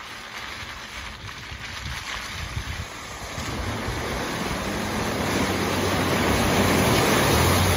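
A four-wheel-drive vehicle approaching through muddy, water-filled ruts: a rush of tyre and water noise that grows steadily louder. Its engine hum comes through clearly from about five seconds in, as the wheels splash through the puddles.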